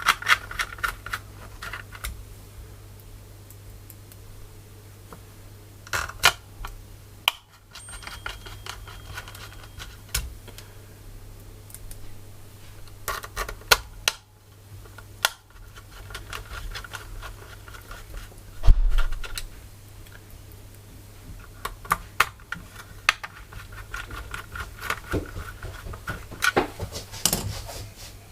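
Small screws being driven by hand with a screwdriver to fasten a keyboard PCB into its case: scattered light clicks, clacks and scraping of metal on metal, with one heavier thump about two-thirds of the way through. A steady low hum runs underneath.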